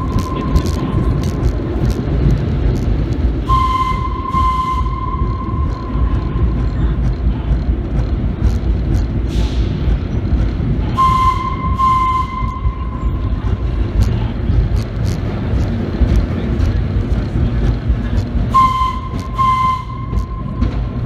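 The air whistle of an R1/9 subway train sounds in repeated long single-pitched blasts. The tail of one comes right at the start, and three more follow, about 3.5, 11 and 18.5 seconds in. Under them the train runs with a steady rumble and wheel clatter through the tunnel.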